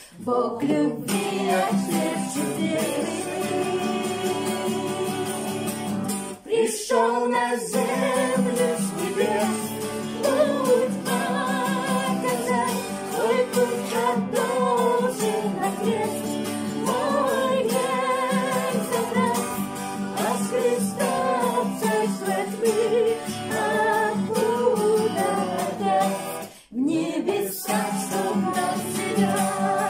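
Song: a singing voice carrying a melody over a guitar accompaniment, with brief breaks about six and a half seconds in and again near the end.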